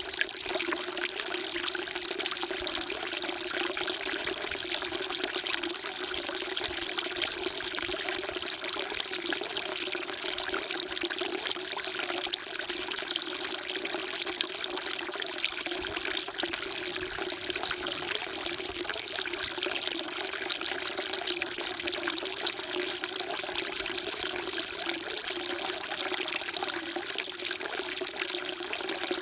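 Water falling in a continuous stream from a spout into a stone temple water trough (sugwak), splashing steadily without a break.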